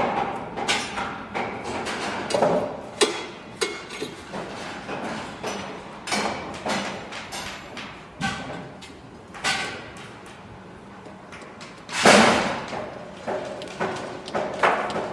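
Construction site work: irregular hammering and knocking, some strikes ringing briefly, with a louder crash about twelve seconds in.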